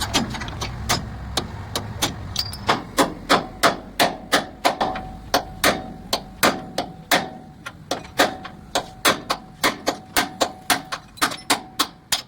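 Hammer blows on steel, struck repeatedly at about three a second and somewhat unevenly, with a steady metallic ring that carries between strikes from about four seconds in.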